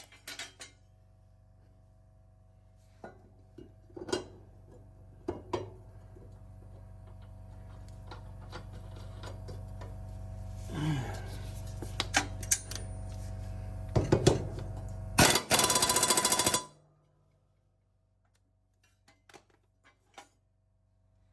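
Impact wrench hammering for about a second and a half on a mower blade bolt, after scattered clicks and clinks of tools on metal. A low steady hum grows louder beforehand and stops when the hammering ends.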